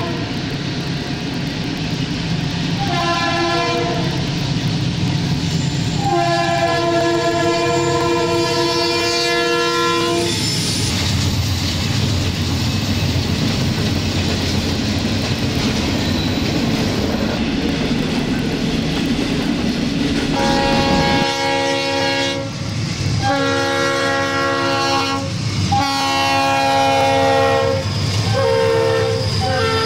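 Union Pacific diesel locomotives' multi-note air horns sounding in repeated blasts over the rumble and wheel clatter of fast freight trains passing. In the middle stretch only the rolling cars are heard. Near the end a lower-pitched horn blows a run of long blasts and a short one.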